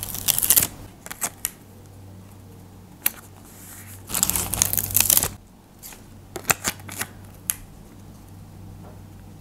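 Paper sticker handled by fingers: peeled from its backing and pressed and rubbed onto a paper page, with rustling at the start and again for about a second midway, and a few light taps and clicks.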